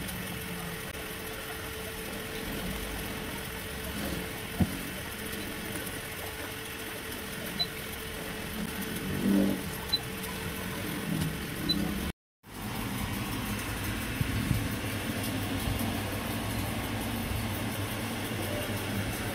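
Steady mechanical background noise with a few short knocks and rustles of a parcel being unwrapped and an amplifier board with its cables being handled on a bench. The sound cuts out for a moment about twelve seconds in, and a steady low hum follows.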